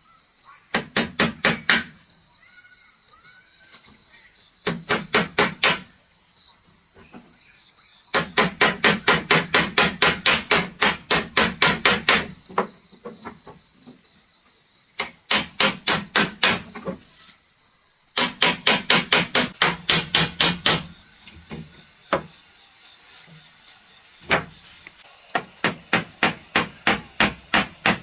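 A hammer striking wood in quick runs of blows, about six a second, with short pauses between the runs. The longest run lasts about four seconds, from about eight seconds in.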